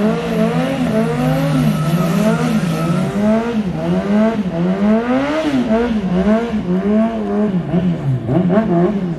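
Car engine revved hard over and over at the drag-race start line during a smoky burnout, held high at first, then rising and falling in quick repeated blips about once or twice a second.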